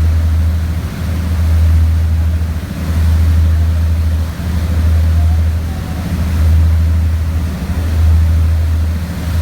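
Low, steady rumble of a boat's engine that swells and dips every second or two, with wind buffeting the microphone.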